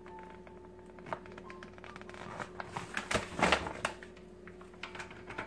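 Paper bag of flour tortilla mix crinkling and rustling as it is handled and set down on a countertop, with scattered light clicks. The rustling is loudest about three and a half seconds in.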